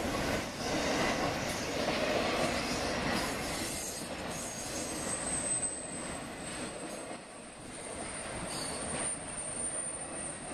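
Intermodal freight train's flatcars rolling past on a sharp curve: a steady rumble and clatter of wheels on rail, with a thin high wheel squeal coming in about halfway through and holding.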